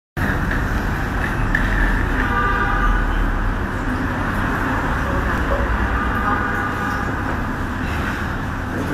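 Steady, loud background rumble with faint voices coming through it at times.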